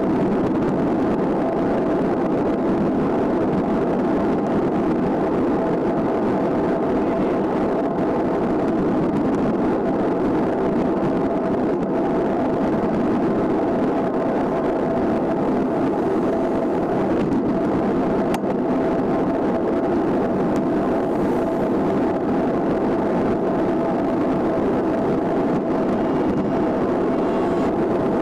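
Steady rush of tyre and wind noise from a bicycle riding along asphalt, with a thin steady hum underneath and a single click about two-thirds of the way through.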